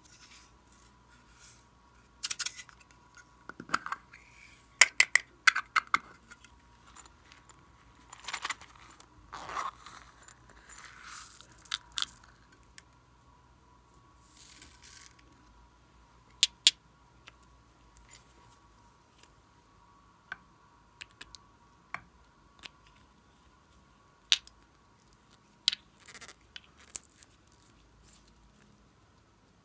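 Plastic sequins, glitter and tiny beads rustling and clicking as hands scoop and sift them over slime in a glass bowl. Clusters of crackly rustles come in the first half, and sparser sharp clicks follow later, as small plastic bottles are handled near the end.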